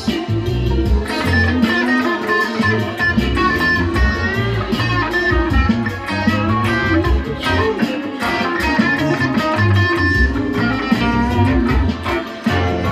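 Electric guitar playing a funky groove of picked notes and short riffs, over a backing line with a deep bass part and a steady beat.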